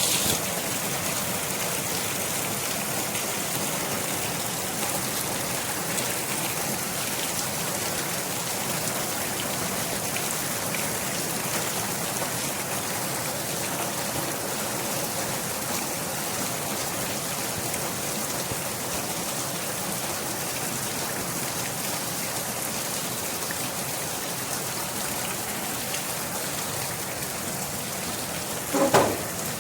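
Steady rain falling on a surface, an even hiss of many drops. Just before the end a brief, louder pitched sound cuts in.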